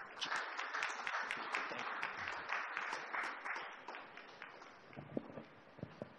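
Audience applause, a dense patter of many hands clapping that dies away about four seconds in, leaving a few scattered last claps.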